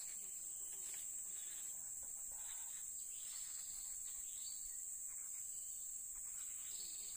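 Insects buzzing in a steady, unbroken high-pitched drone, the constant chorus of a tropical forest.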